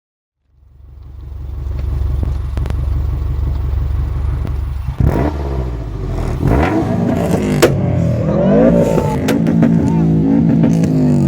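Electronic intro music fading in: a deep steady bass drone, then about five seconds in a busier section of wobbling synth lines that slide up and down in pitch.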